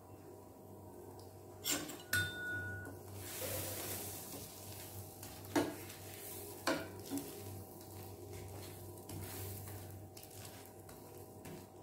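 Spatula scraping across a dosa on a hot pan as it spreads a chilli and roasted-gram paste over it, with the dosa sizzling faintly underneath. A few sharp knocks of utensil on pan, about two seconds in and again near six and seven seconds, one leaving a short clink.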